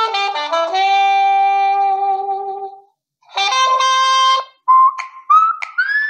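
Instrumental music: a held reedy chord, a run of notes stepping down into a long held note, a short break, another held chord, then short sliding high notes near the end.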